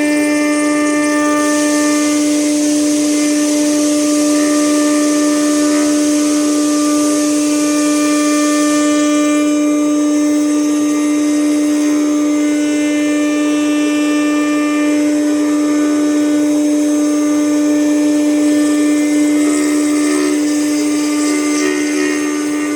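4-axis CNC router spindle running with a steady high whine while its bit carves wood. The cutting hiss grows brighter from about a second and a half in until about nine seconds, then eases as the cut goes on.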